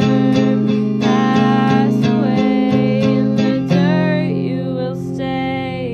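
Guitar strummed in an even rhythm under a singing voice holding wavering notes; about four seconds in the strumming stops and a chord is left ringing.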